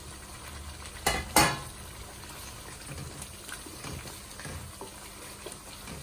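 Raw chicken livers tipped from a steel plate into thick tomato masala sizzling in an aluminium kadai, with two sharp knocks about a second in. A wooden spoon then stirs the livers through the masala, with small scraping clicks.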